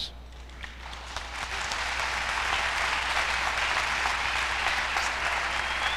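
Audience applauding: the clapping starts faintly about half a second in, swells over a second or so, then holds steady.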